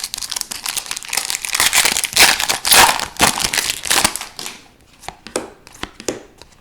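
Foil wrapper of a hockey card pack crinkling as it is handled and torn open. Near the end it gives way to a few light sharp clicks of cards being handled.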